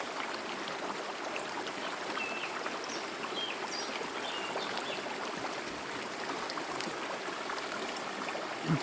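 Forest stream flowing with a steady rush of water, with a few faint high chirps in the middle and a brief low thump near the end.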